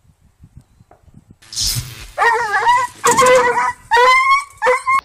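Doberman yelping in pain after a shock from an electric fence: a short noisy burst about a second and a half in, then about four loud, high yelps in quick succession.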